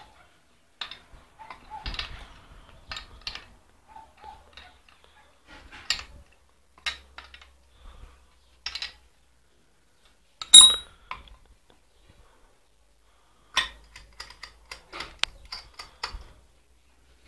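Scattered clinks and knocks of metal parts and tools being handled, with one loud, sharp ringing metal clink about ten seconds in.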